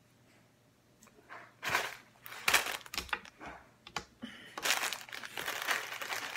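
Plastic snack bag of puffed corn balls crinkling and rustling as it is handled, a few short crackles at first and then steady busy crinkling over the second half.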